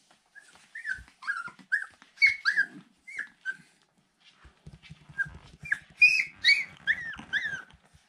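Husky puppy squeaking: a run of short, high-pitched squeaks, each falling in pitch, in two bunches with a pause in the middle.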